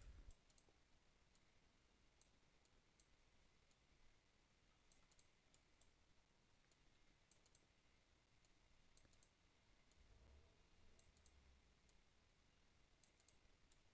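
Near silence: room tone with a few faint, scattered computer mouse clicks as curve control points are picked and dragged.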